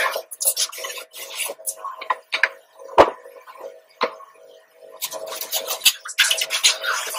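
Water jet from a handheld pressure spray gun hitting the plastic housing and fins of an air conditioner indoor unit, in short irregular bursts as the spray is swept and triggered, over a steady hum. A single sharp knock about three seconds in.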